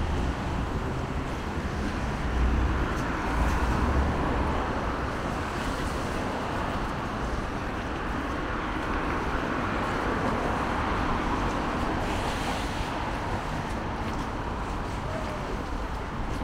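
Steady city street traffic noise, with a low wind rumble on the microphone during the first few seconds.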